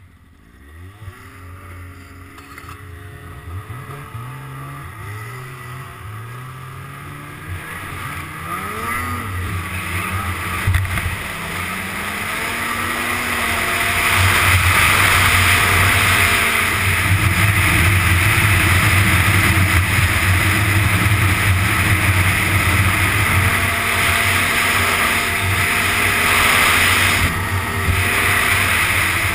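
A 2005 Ski-Doo GSX 600's two-stroke engine pulls away and revs up in a series of rising surges, getting louder. It then runs steadily at speed with a strong hiss of wind and track noise.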